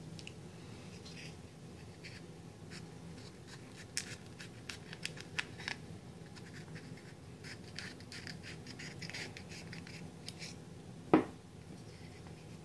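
Small scissors snipping through the leathery shell of a ball python egg: a run of quiet scratchy clicks, thickest in the middle. One sharp knock, the loudest sound, comes near the end.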